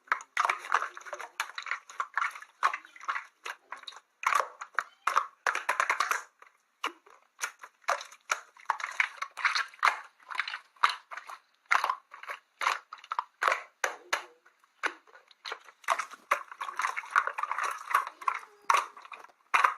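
Slime being squished and pressed by hand, giving a dense, irregular run of small clicks and crackling pops.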